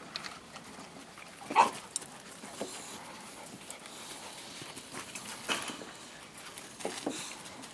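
A dog's short, sharp barks over low background noise. The loudest comes about a second and a half in, with others around five and a half and seven seconds.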